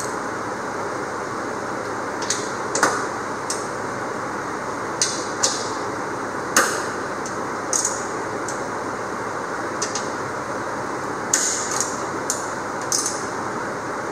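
Irregular light metallic clicks and taps of a hand tool being handled, about a dozen, the sharpest about six and a half seconds in, over a steady shop-fan noise.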